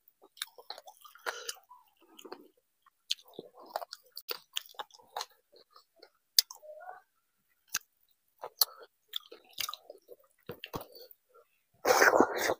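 Close-miked eating of vegetable khichdi by hand: wet chewing and mouth smacks with scattered small clicks, and a louder burst of wet noise near the end as a handful of rice goes into the mouth.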